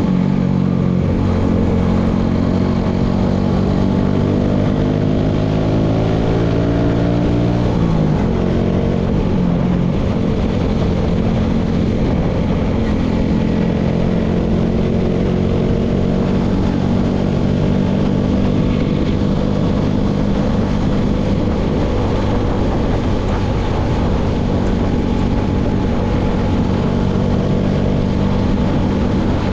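Motorcycle engine under way: the revs climb for several seconds, drop sharply at a gear change about eight seconds in, then hold a steady note while the bike cruises.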